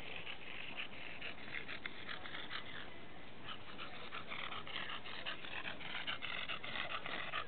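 English bulldog panting hard in a quick, steady rhythm of about five breaths a second while riding a skateboard, with the wheels rolling on asphalt underneath.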